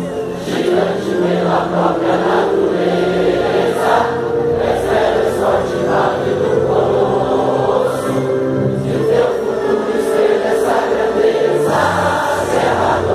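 A large crowd singing together in chorus, held notes moving in unison.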